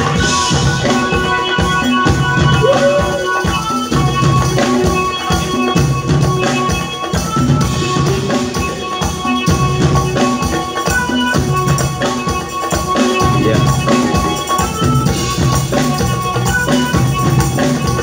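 Live band playing with a steady beat, drums and electric guitars over sustained instrument tones.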